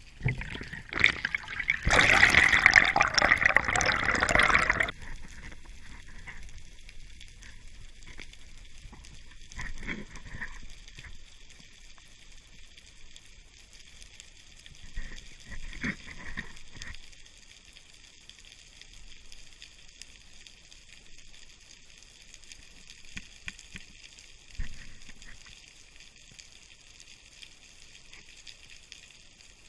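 Water noise: a loud burst of rushing, splashing water about two seconds in, lasting about three seconds, then quieter water sounds with a few brief splashes.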